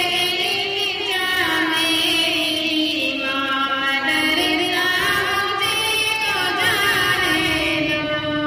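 A group of girls singing a devotional song together, a flowing melody amplified through a microphone and loudspeakers.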